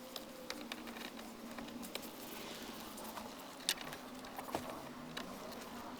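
Scattered light clicks and taps of the NRG steering hub being handled and seated onto the steering column, over a faint steady hum.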